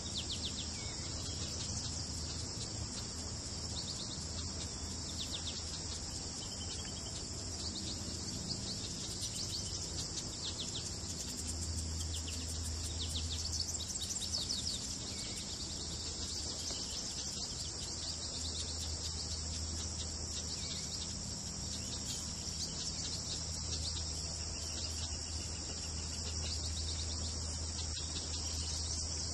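Steady, high-pitched insect chorus that never lets up, with faint, scattered bird chirps, busiest about halfway through, and a faint low hum underneath.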